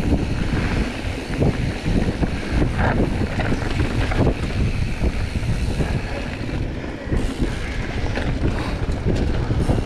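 Mountain bike rolling fast over a dirt singletrack: wind buffeting the bike-mounted action camera's microphone and a steady rumble of tyres on dirt, with frequent knocks and rattles as the bike goes over bumps.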